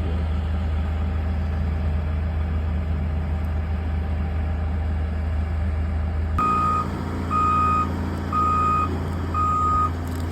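Excavator diesel engine running steadily. About six seconds in, the engine note changes and the machine's travel alarm starts beeping, roughly once a second.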